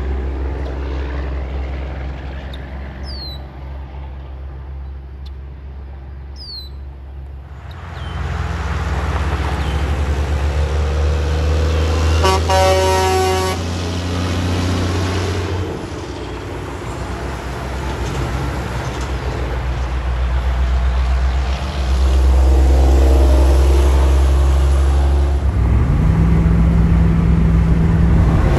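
Diesel semi trucks passing on a highway, with a low steady engine drone that swells as each one goes by. About twelve seconds in, a truck's air horn blows once for about a second and a half. Near the end an engine's pitch rises as a truck picks up speed.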